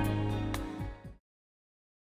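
Background music ending: the song's last sustained chord fades and stops just over a second in, followed by silence.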